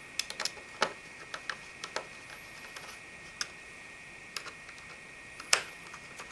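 Irregular light clicks and taps of a small hex screwdriver and screws as the two rear-panel hex screws of a hard drive enclosure are tightened, with one sharper click about five and a half seconds in.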